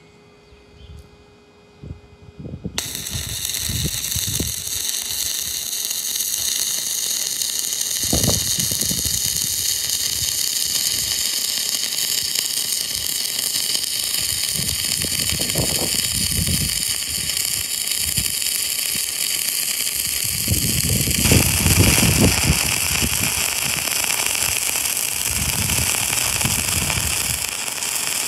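Stick welding arc from a 3/32 in. 7014 electrode run on DCEN: after a few small taps about two seconds in, the arc strikes and burns steadily while a horizontal bead is laid, with scattered pops, a little louder from about 21 seconds on.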